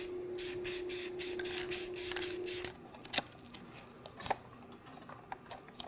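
Hands working on plastic toy-gun parts at a workbench: a quick run of rubbing, scratchy strokes over a steady hum, both stopping under three seconds in, then scattered light clicks and taps.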